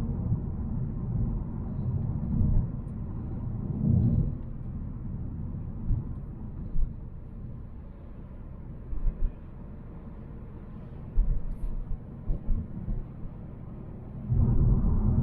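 Low engine and road rumble of a Volvo C70 heard inside the cabin while driving. It eases off after about four seconds, with a few dull thumps, then swells again near the end.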